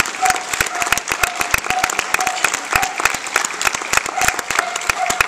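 Ringside audience applauding steadily, a dense patter of many hands clapping.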